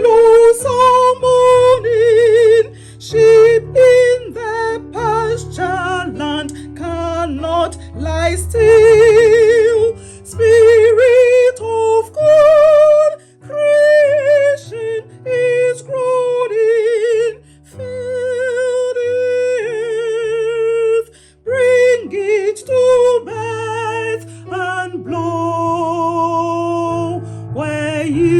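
A hymn verse sung by a choir with instrumental accompaniment. A clear voice carries the melody with a strong vibrato over sustained low notes that change every second or two.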